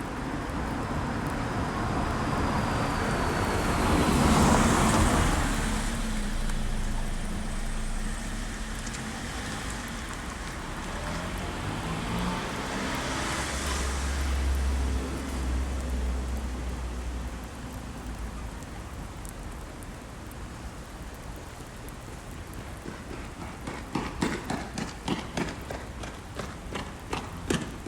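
Two cars passing on a wet road, their tyre noise swelling and fading, one about four seconds in and another around thirteen seconds, over steady rain. Near the end, running footsteps start, about three strides a second.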